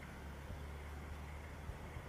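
Faint, steady low hum under an even hiss, with no distinct calls or knocks.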